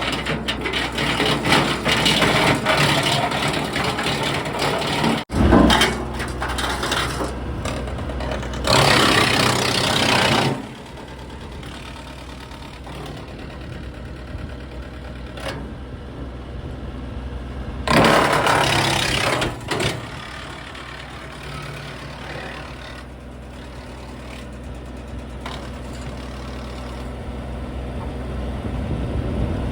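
John Deere 3025E's three-cylinder diesel running steadily, driving a Titan three-point-hitch PTO wood chipper. Loud stretches of grinding and cracking come and go as branches are fed through the rotor.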